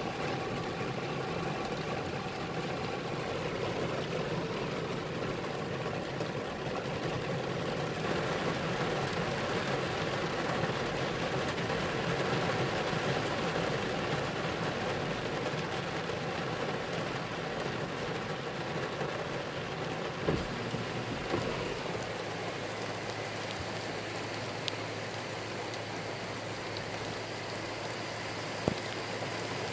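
Steady rain falling during a thunderstorm, over a steady engine-like hum. A few short sharp taps come about two-thirds of the way through and again near the end.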